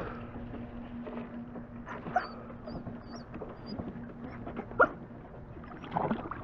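Dog whining and yelping in short high cries, with sharp yelps about two seconds in and near five seconds: the anxious whining of a dog hesitating at the edge of a dock before jumping into the water.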